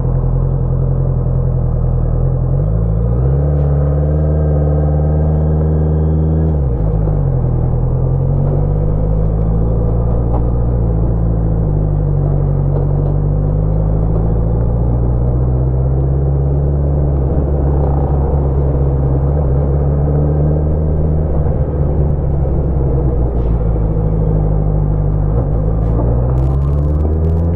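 Honda CBR650F's inline-four engine running under way: the revs rise about three seconds in, drop back a few seconds later, hold low through the middle, and climb again near the end as the bike pulls away in first gear.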